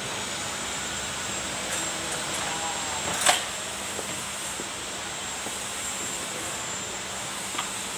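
A steady, even running noise with a sharp click a little over three seconds in and a fainter click near the end.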